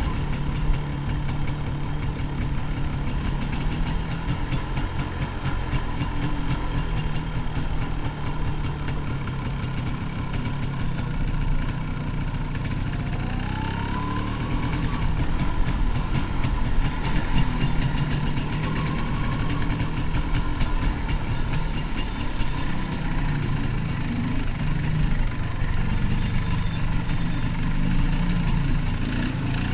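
1988 MZ ETZ 250's single-cylinder two-stroke engine running while riding, with its pitch rising as it revs up about halfway through and again near the end.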